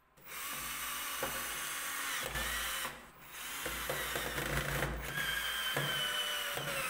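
Cordless drill driving wood screws into a wooden table-leg bracket. It runs in two long bursts with a brief pause about three seconds in, and the motor whine shows plainly in the second run.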